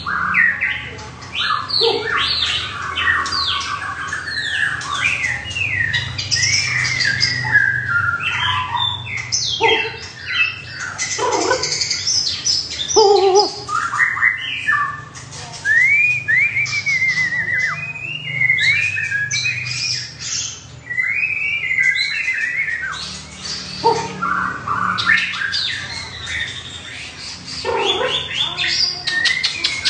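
Caged songbirds singing: a long run of varied whistled phrases of rising and falling notes, with short harsh calls mixed in.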